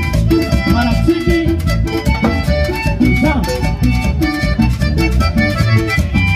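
Live band playing upbeat Latin dance music, a piano accordion carrying the melody over acoustic guitar, electric bass and timbales struck with sticks in a steady, even beat.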